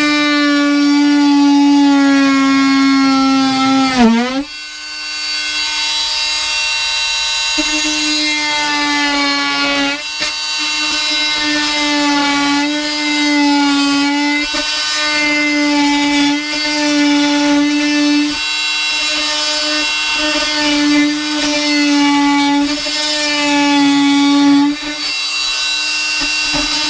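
Oscillating multi-tool running and cutting, a loud buzzing whine whose pitch wavers as the blade bites. About four seconds in its pitch slides down as it stops; it starts again a few seconds later, runs on with a brief dip about two-thirds through, and stops shortly before the end.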